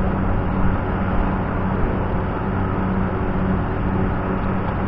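Loud, steady drone of running engine-driven machinery, with a constant low hum under an even noise and no breaks.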